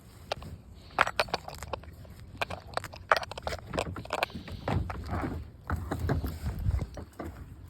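Irregular crunching and snapping clicks of weeds and packed dirt being pulled and picked out from between the boards of a wooden deck, with a low rumble underneath in the middle.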